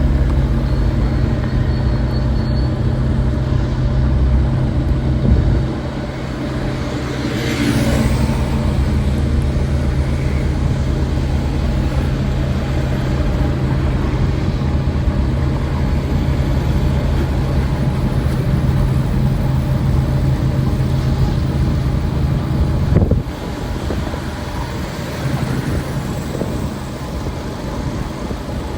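Street traffic with a motor vehicle's engine running steadily close by. A brief rushing sound comes about seven seconds in, and the engine hum cuts off about 23 seconds in, leaving general traffic noise.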